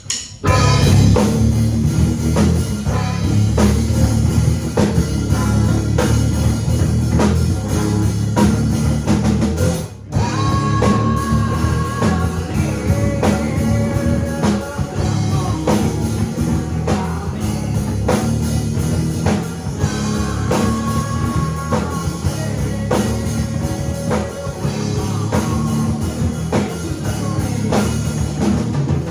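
A rock band playing live in rehearsal, drum kit and electric guitars together, starting right after a count-off, with a brief drop about ten seconds in.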